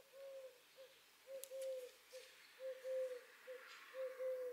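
A dove cooing: a repeated phrase of a short coo followed by a longer one, roughly every second and a half.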